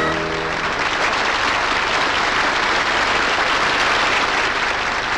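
Audience applauding steadily, with the sung note and the accompaniment's final chord cutting off in the first half second.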